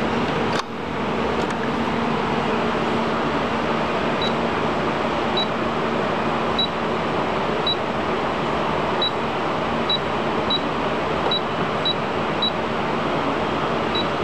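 Short high beeps from a Baby Lock Tempo computerised sewing machine's control panel as its buttons are pressed: a dozen or so at uneven intervals, starting about four seconds in. Under them runs a steady whirring hum.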